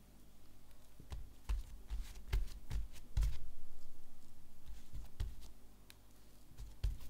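Hands handling a folded sheet of bread dough on a silicone baking mat: a string of soft taps and low thumps as the dough is pressed and its edges tucked, most of them between about one and three and a half seconds in, with another near the end.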